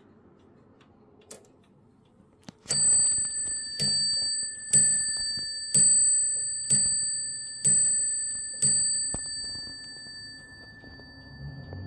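1880 Empire-style mantel clock striking seven times on its bell, about one blow a second, each strike ringing on and the ring fading after the last blow. A couple of faint clicks come just before the first strike.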